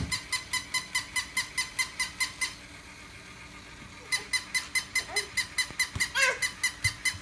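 Battery-powered toy puppy squeaking in a rapid, regular rhythm, about five squeaks a second. The squeaking stops for about a second and a half in the middle, then starts again, with a few short toddler sounds and soft thumps near the end.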